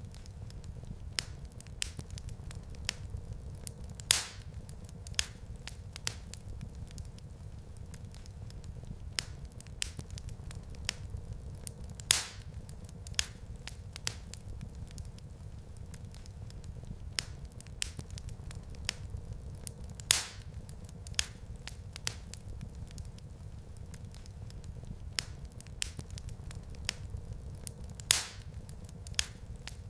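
Wood fire in a fireplace crackling, with a steady low rumble of flames under frequent small snaps and a few louder pops about every eight seconds.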